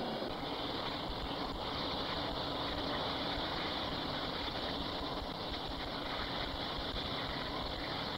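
Steady, unbroken rushing noise with no rhythm or pauses.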